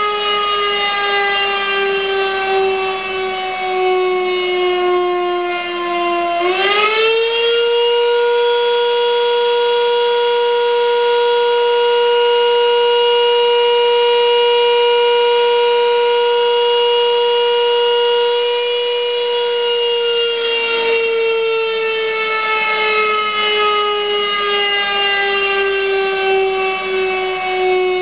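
Sachsenwerk electric motor siren sounding the fire-alarm signal. Its tone sinks as it winds down in a pause, climbs quickly back to full pitch about six seconds in, holds one steady wail for about twelve seconds, then winds down again.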